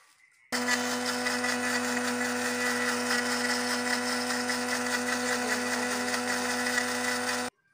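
Electric blender running at a steady speed, churning green chillies, garlic, ginger and yogurt into a paste. It switches on about half a second in and cuts off suddenly just before the end.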